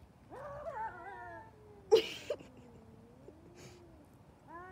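Two domestic cats caterwauling in a fight standoff: a wavering yowl in the first second and a half, then a long low moaning growl that dips and rises. About two seconds in, a short harsh burst is the loudest sound, with a fainter harsh burst later on.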